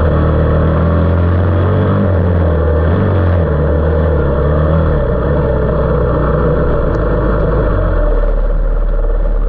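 A 450cc off-road machine's engine running hard under way, heard from a fender-mounted camera with a dense rush of wind and road noise. The engine note shifts in pitch a few times: about two seconds in, again near three and a half seconds, and near the end, as the throttle or gear changes.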